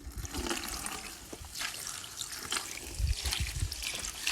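Close-up crunching and crackling of multani mitti (Fuller's earth clay) being bitten and chewed, a dense crumbly crackle with a few dull low thuds of chewing about three seconds in.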